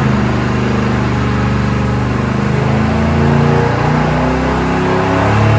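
Carbureted LT1 V8 running at full load on an engine dyno during a power pull, its revs climbing past about 3,700 rpm, heard from the control room behind the glass.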